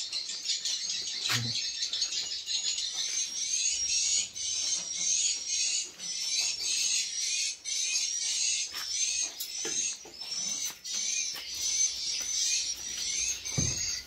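Edible-nest swiftlets twittering inside their nesting house: a dense, continuous chatter of high chirps repeating several times a second, with scattered sharp clicks.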